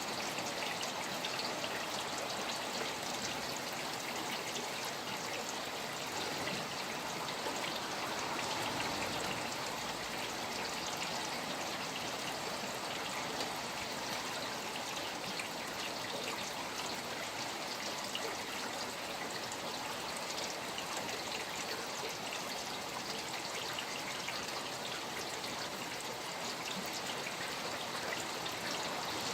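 Steady rain falling beside trickling running water: a continuous hiss with many fine pattering drops.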